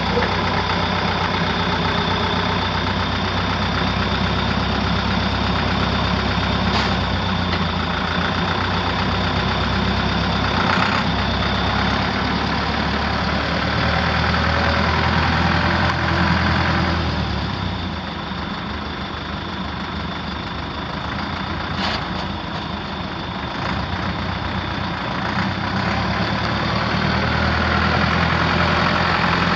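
A Deutz tractor's four-cylinder diesel engine running steadily. It gets quieter a little past halfway and louder again near the end.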